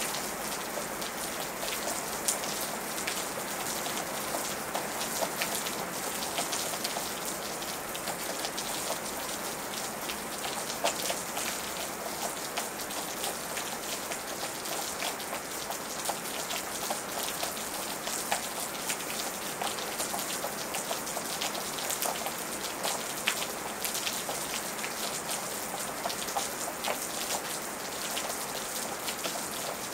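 Steady rain falling, with many individual drops striking a hard surface as sharp little ticks over an even hiss.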